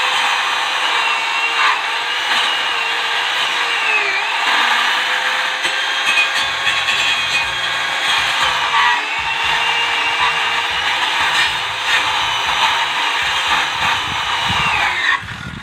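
Power saw cutting into a tree trunk, its motor running steadily and dipping in pitch each time it bogs under load in the wood, then stopping suddenly near the end.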